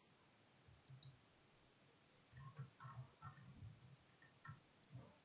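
Near silence broken by faint clicks of a computer mouse and its scroll wheel as a document is scrolled. Most of the clicks come in a cluster between about two and four seconds in.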